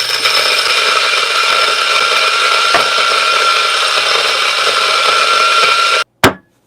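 Turin DF54 electric coffee grinder running steadily as its 54 mm flat burrs grind espresso beans, with a constant whine over a gritty rattle; it cuts off suddenly about six seconds in. A single sharp knock follows just after.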